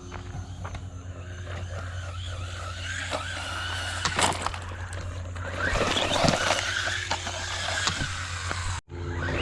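DEERC 001E brushless RC truck driving through tall grass, its motor whine rising and falling in pitch with the throttle, strongest and highest about six seconds in. The sound cuts out briefly near the end.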